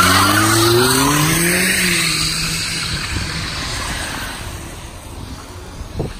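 A car accelerating hard past on a wet street: the engine revs rise in pitch over about two seconds with a rushing noise of tyres and exhaust, then fade steadily as it pulls away. A short knock near the end.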